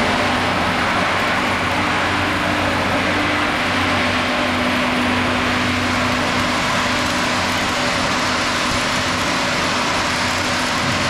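Flux-cored arc welding: two welding arcs crackling and hissing steadily, over a steady low hum.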